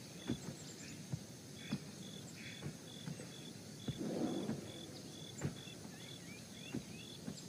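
Faint night ambience: steady insect chirping, about two chirps a second, with scattered soft clicks and a short rustle about four seconds in.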